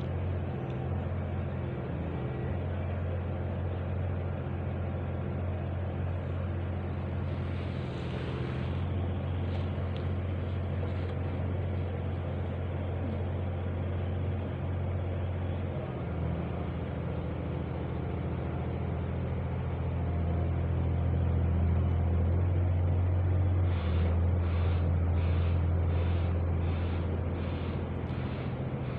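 Low, steady mechanical drone like an engine or machine running, with a strong low hum that swells somewhat past the middle. Near the end a run of even, rhythmic pulses, a little under two a second, rides over the drone.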